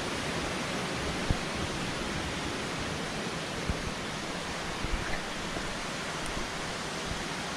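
Steady rush of flowing water from the stream and waterfalls. A few soft low thumps stand out over it.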